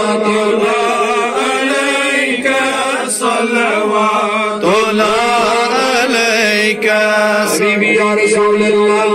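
Men chanting a Salaam, the sung devotional salutation to the Prophet, together in a continuous melodic chant led by one voice amplified through a microphone.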